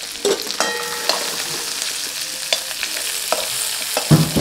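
Onions, dried red chillies and urad dal sizzling steadily in hot oil in a kadai. Steel vessels clink and ring briefly about a second in. Near the end a steel spatula stirs and scrapes in the kadai.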